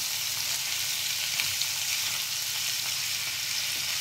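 Boiled potato pieces frying in hot mustard oil in a non-stick kadhai: a steady sizzle, with a spatula stirring them and a few light scrapes and knocks against the pan.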